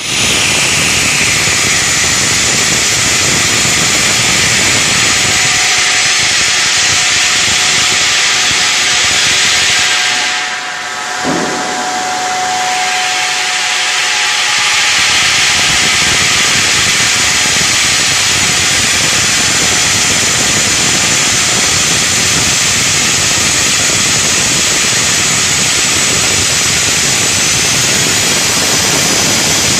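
Granite block cutting saws running and cutting stone: a loud, steady hiss-like grinding noise. About a third of the way in it briefly drops, with a short rising whine, then carries on.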